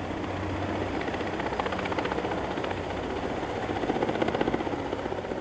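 Helicopter rotor beating in a fast, even pulse over a steady engine hum, swelling louder about four seconds in.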